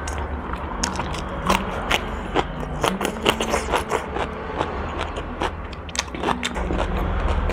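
Close-miked chewing and mouth smacking while eating boiled pork bone meat: a steady run of short clicks and smacks, several a second, over a low steady hum.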